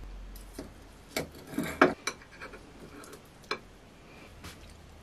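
Cutlery clinking and scraping against a plate during eating: a few short clicks, the loudest cluster just under two seconds in and a single click about halfway through.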